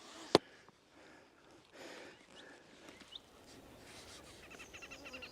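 A single sharp click just under half a second in. From about four seconds in, a common sandpiper's fast trill of high, evenly repeated notes starts up.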